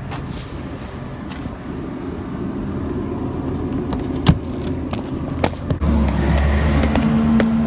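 1996 Ford Explorer's 4.0 L V6 engine running, with a few sharp ticks. It becomes louder and steadier about six seconds in.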